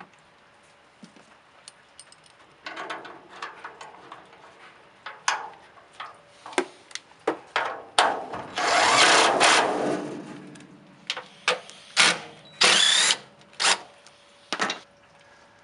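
A cordless power driver runs a hood hinge bolt in a burst of about two seconds, starting about eight seconds in, and again in a short burst about four seconds later. Sharp clicks and knocks of the socket and parts being handled come in between.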